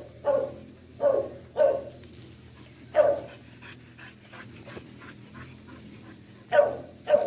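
A dog barking in short, sharp barks, each dropping in pitch: three in the first two seconds, one about three seconds in, and two close together near the end.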